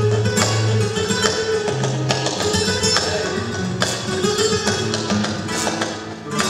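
Flamenco music led by guitar, with sharp percussive strikes cutting through it at irregular moments.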